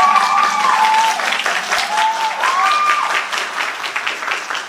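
Audience applauding, with high-pitched cheers and whoops gliding over the clapping for the first three seconds; the clapping thins out and fades toward the end.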